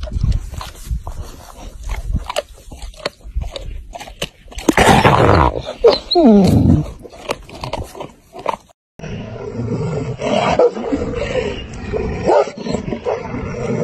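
Tibetan mastiff and wolves feeding on raw meat: sharp chewing and tearing clicks, then about five seconds in a loud snarl that falls in pitch. After a sudden cut about nine seconds in, rough steady growling and snarling.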